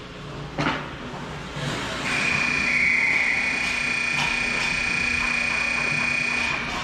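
Ice rink scoreboard horn sounding one steady electronic tone for nearly five seconds, starting about two seconds in: the signal that ends the period. Just before it comes a single sharp knock on the ice.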